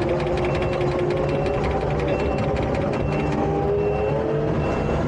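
Takeuchi tracked skid steer working: its engine runs steadily under a wavering whine, with a rapid mechanical clatter. Short high beeps repeat about once a second.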